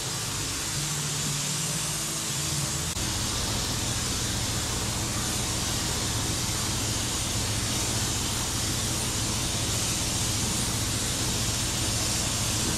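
Compressed-air gravity-feed spray gun hissing steadily as it sprays epoxy primer, with a steady low hum underneath that grows louder about three seconds in.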